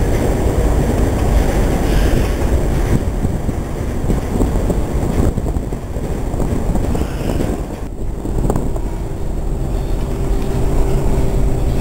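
Steady low rumble of the car ferry Kaleetan's engines, mixed with wind buffeting the microphone on the open deck. From about nine seconds in, a steady mid-pitched hum joins it.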